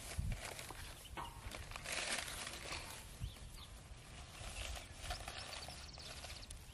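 Faint rustling of dry grass and newspaper being handled and laid in a hearth, with small bird chirps in the background.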